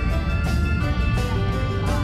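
Background music with a steady beat and a stepping melody of held notes.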